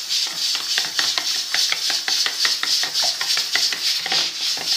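Yogurt being whisked by hand in a bowl, with milk being worked in: quick, even clicking and scraping of the utensil against the bowl, about seven strokes a second.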